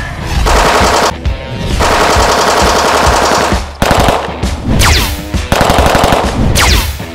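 Rapid-fire blaster sound effects: several bursts of automatic gunfire with short breaks between them, and a few high zaps falling in pitch.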